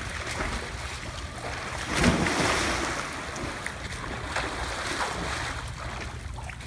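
A person jumping into a swimming pool with a loud splash about two seconds in, then the churning splashes of swimming through the water, over wind rumbling on the microphone.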